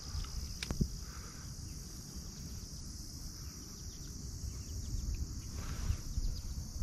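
Steady high-pitched chorus of late-summer insects, with a sharp click a little under a second in and a brief rush of noise near the end.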